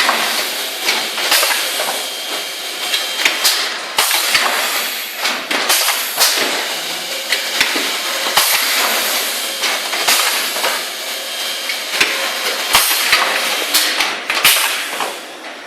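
Automatic cup filling and sealing machine running: a steady hiss with frequent, irregular clacks and knocks from its moving parts, easing slightly near the end.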